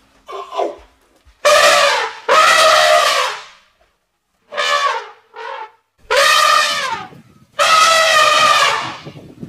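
Elephant trumpeting: a run of about five loud calls, each roughly a second long with its pitch dropping at the end, with shorter, quieter calls between them.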